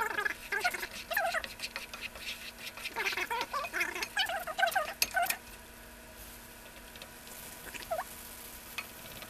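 A spatula stirring peanuts through melting sugar in a pan: the peanuts click and scrape against the pan and the spatula squeaks on the pan's surface. The stirring stops about five and a half seconds in, leaving only a faint hiss and an odd click.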